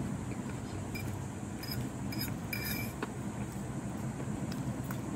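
Steady low background rumble of open-air ambience, with a few faint light clicks scattered through it.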